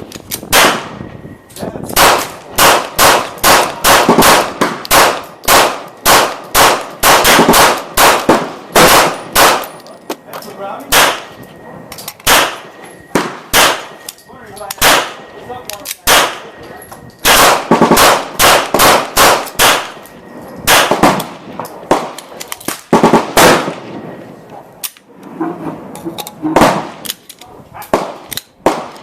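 Glock 19 Gen4 9mm pistol firing Tula 115-grain steel-case rounds in fast strings of shots, often two to three a second, with brief pauses between strings.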